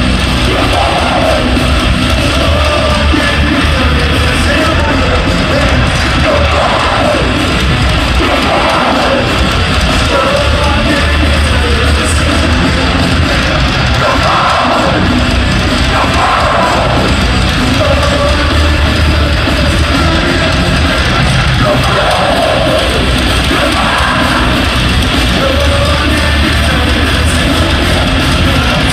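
Heavy metal band playing live, heavy drums and distorted guitars with shouted vocals that come and go every couple of seconds, heard from the crowd in a large arena.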